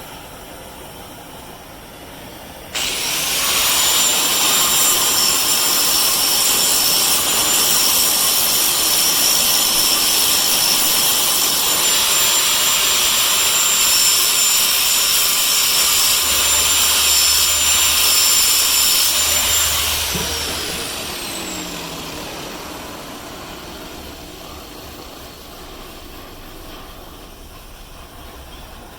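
Handheld power grinder switched on about three seconds in and running steadily with a high whine for about seventeen seconds, then switched off and spinning down, its pitch falling as it fades.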